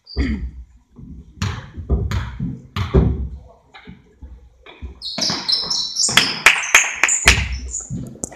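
A basketball bounced on a hardwood gym floor, several separate thuds. From about five seconds in, quick sneaker squeaks and footfalls on the court take over and are the loudest sounds.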